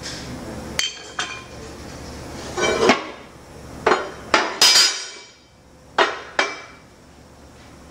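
Steel fixture plates and press parts clanking against each other as they are handled in a shop press: a string of sharp metallic knocks and clinks, some ringing briefly.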